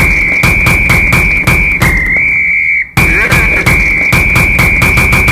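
Background music: a high, held whistle-like melody tone over a steady, fast drum beat, with a short break about three seconds in.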